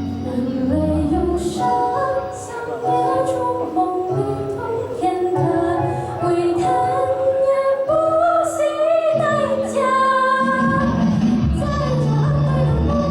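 Music with a female voice singing a melody of held notes over instrumental accompaniment.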